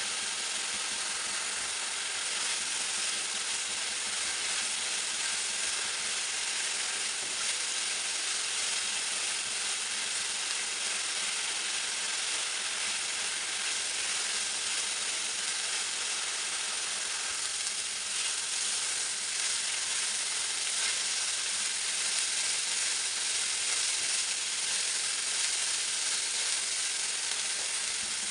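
Finely chopped onions frying in hot oil in a nonstick frying pan, a steady sizzle.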